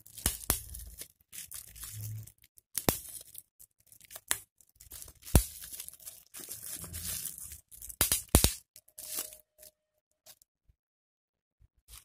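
Plastic bubble wrap being squeezed and crinkled between the fingers, with a handful of sharp pops as bubbles burst.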